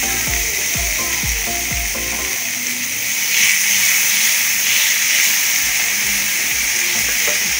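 Chopped tomatoes and minced garlic sizzling in hot oil in a pan, stirred with a silicone spatula: a steady frying hiss. Background music with a beat plays over the first two seconds or so.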